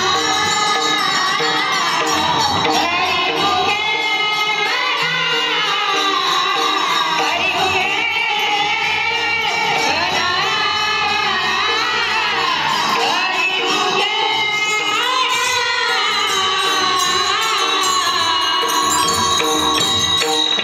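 A Varkari devotional song: a voice sings a melody full of slides and bends, over a steady musical backing with jingling metal percussion such as small hand cymbals.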